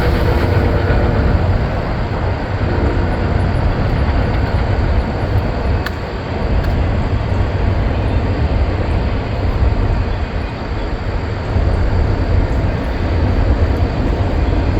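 Small battery-powered electric chainsaw cutting through wood, a steady loud noise with a heavy low rumble.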